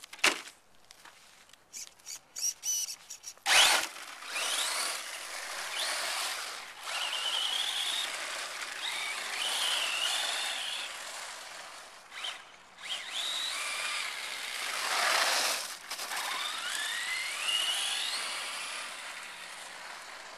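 Traxxas Slash 4x4 Ultimate RC truck driving off: a few short clicks and blips in the first few seconds, then its brushless electric motor whining, the pitch rising and falling with the throttle, over a rushing hiss from the tyres and drivetrain.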